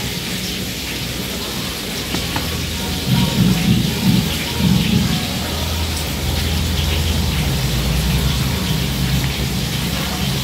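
A steady low rumble with a hiss of noise over it, swelling louder a few times in the middle.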